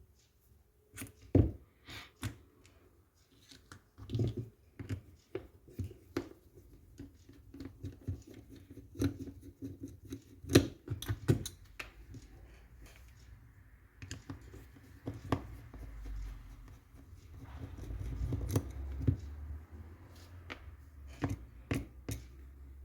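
Irregular clicks, taps and scraping of small parts and tools being handled while an airsoft M14 with a V7 gearbox is worked on, with a few sharper knocks.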